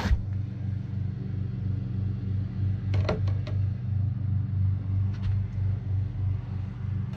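A single-cylinder motorcycle engine idling steadily, with a slow, even pulse in its low rumble. There are a few light clicks about three seconds in and again around five seconds.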